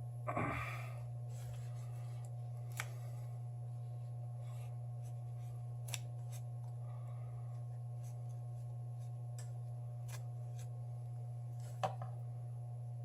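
Small pry-tool scrapes and clicks against a phone's glued glass and frame as it is worked apart: a short scraping rustle just after the start, then a few isolated sharp clicks, the loudest near the end, over a steady low hum.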